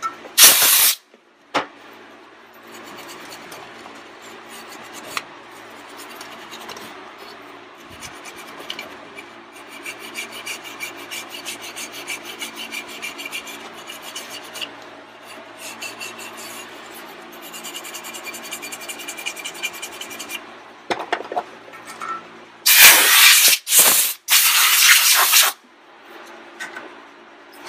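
A screwdriver tip scraping heavy carbon build-up off the variable-vane ring area of a 6.0L diesel turbocharger, metal rasping in long runs of quick back-and-forth strokes. A short, loud blast of compressed air comes at the start, and several longer, louder blasts come near the end, blowing the loosened carbon away.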